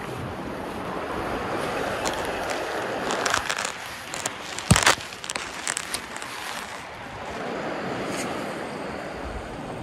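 Steady wind and sea noise on the microphone, broken in the middle by a cluster of short clicks and knocks, the loudest a single sharp knock about five seconds in.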